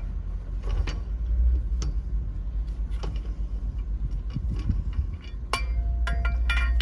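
Loose lug nuts clinking together as they are handled, a quick run of sharp clinks near the end, over a steady low rumble and a few scattered small clicks.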